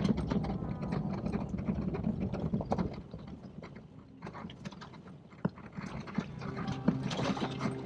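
A 4WD driving on an unsealed gravel road: a low road rumble with many quick rattles and knocks from stones and the vehicle's fittings.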